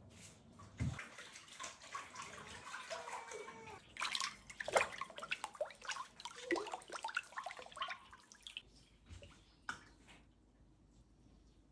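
A spoon stirring seasoned kimchi brine in a large stainless steel bowl: the liquid sloshes and drips, with quick clinks and scrapes of the spoon on the metal. It dies down after about eight seconds.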